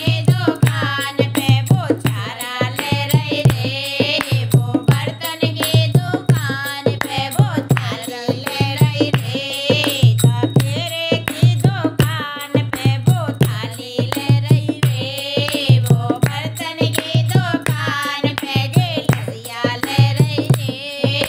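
Bhat geet folk song: a voice singing over a steady drum rhythm.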